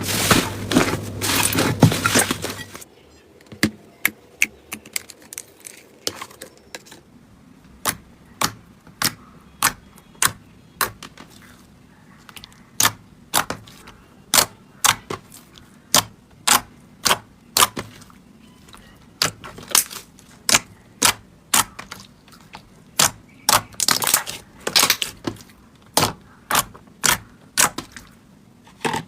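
Slime being worked by hand: a dense crackling for the first couple of seconds, then a long run of sharp separate pops, about one to two a second.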